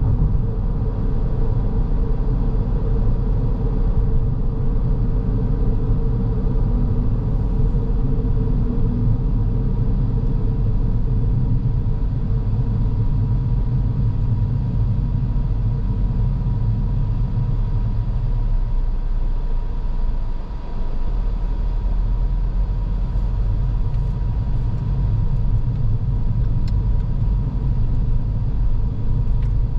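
Car driving on the road: steady low rumble of tyres and engine. The rumble briefly eases about two-thirds of the way through.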